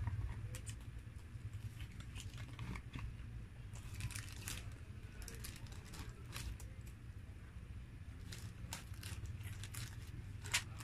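Close-miked paper crinkling and rustling as a crumpled paper wrapper is handled by a hand taking food, with scattered sharp clicks and crackles, one louder click near the end, over a steady low hum.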